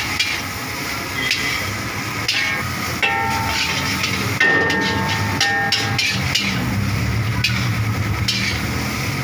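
Long-handled steel spatula repeatedly striking and scraping a large wok while stir-frying noodles, making a run of quick metallic clanks.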